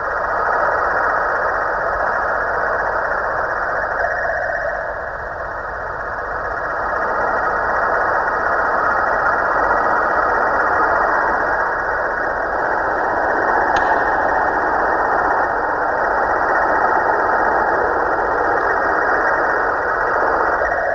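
Snoring sound from a Halloween pumpkin decoration: a loud, continuous rasping snore that swells and eases slowly.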